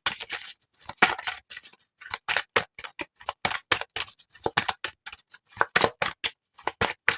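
A deck of tarot cards being shuffled by hand: quick, irregular clicks and slaps of card against card, about four a second.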